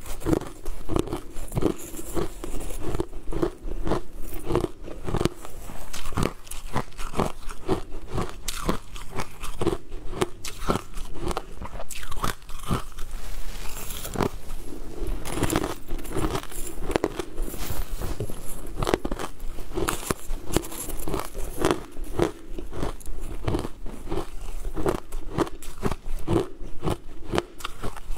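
Crushed ice being bitten and chewed close to the microphone: a dense, continuous run of sharp crunches and crackles.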